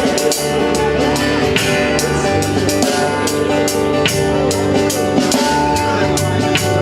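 Band music with a drum kit keeping a steady, even beat under held pitched instrument notes.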